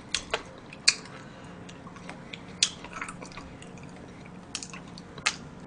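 Chewing chocolate cake, with several short sharp clicks and taps scattered through it.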